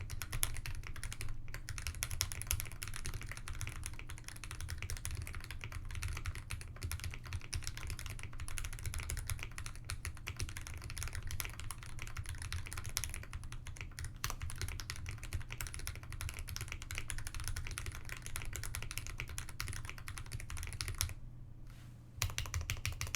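Fast, continuous typing on an Ikki68 mechanical keyboard with factory-lubed Gateron KS-3 Milky Yellow Pro linear switches, an aluminium plate and GMK keycaps: a dense run of keystroke clacks with a short pause near the end.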